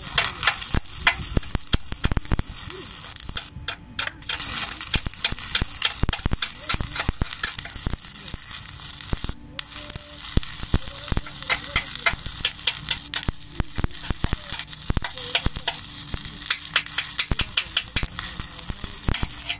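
Electric arc (stick) welding on mild steel pipe: the electrode's arc crackles and sizzles steadily as it runs a bead along the pipe joint. It breaks off briefly twice, about 4 and 9 seconds in.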